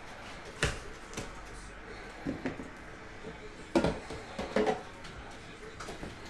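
An Upper Deck The Cup hockey box's metal tin and cardboard inner box being handled: a series of light knocks and clicks, the loudest about four seconds in, followed by a few quick ones just after.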